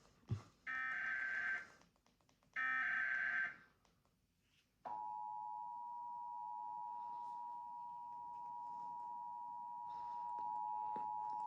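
Emergency Alert System broadcast tones: the last two of three SAME header data bursts, each a warbling screech about a second long with a second's gap, encoding a Civil Emergency Message. After a short pause, about five seconds in, the two-tone attention signal starts and holds steady. A brief thump sounds just after the start.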